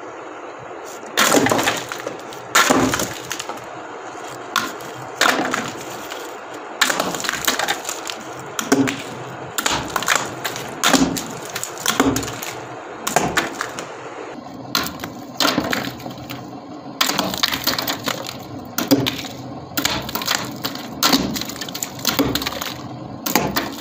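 Plastic exhaust fan running with a steady hum while crunchy crackers are dropped into its spinning blades, each one smashed with a sharp crack and splintering crunch, about one every second or so.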